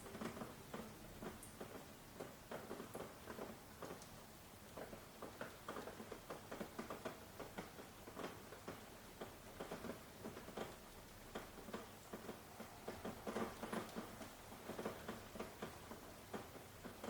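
Faint rain: drops pattering irregularly on a surface, many small uneven taps.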